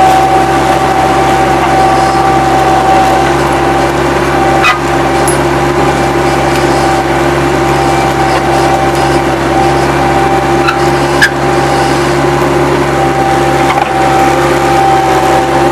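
Bobcat 763 skid-steer loader running steadily under work, a diesel drone with a steady high whine over it, broken by a few brief sharp clicks about five and eleven seconds in.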